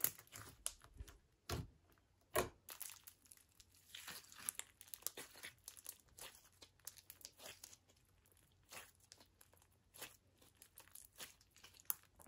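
Hot pink Elmer's Gue slime mixed with foam beads being squeezed and kneaded by hand: quiet sticky crackling and little pops, with two louder pops about one and a half and two and a half seconds in.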